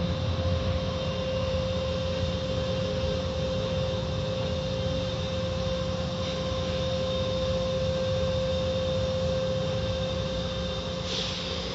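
Water from an automatic car wash sheeting over the windshield and roof, heard from inside the car as a steady rush and low rumble, with the car wash machinery giving a steady high whine.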